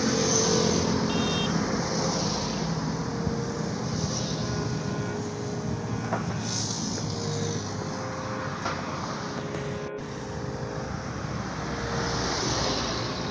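Road traffic going by: motorbike and rickshaw engines running and passing, a steady noise that swells and fades several times.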